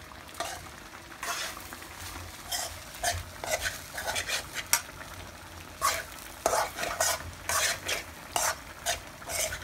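A metal spoon stirring and scraping cooked rice around a hot pan in irregular strokes, with a low sizzle underneath.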